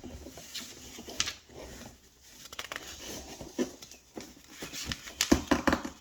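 Scissors cutting through cardboard: a run of irregular snips, crunches and scrapes, with the loudest cluster near the end.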